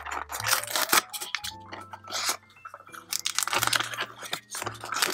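Cardboard phyllo dough box being opened by hand: its flap is worked open with repeated crackling and scraping of the card. Soft background music with held low notes runs underneath.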